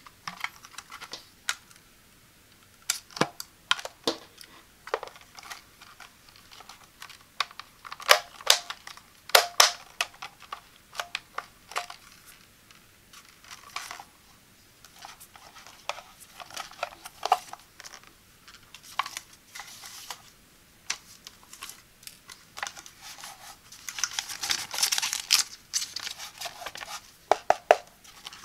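Hands handling a new plastic-bodied steam iron: scattered taps and clicks of fingers on its plastic housing, with rustling and crinkling of its wrapping, longest near the end.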